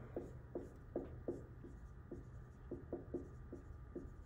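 Marker writing on a whiteboard: about a dozen short, squeaky strokes at an uneven pace as a word is written out by hand.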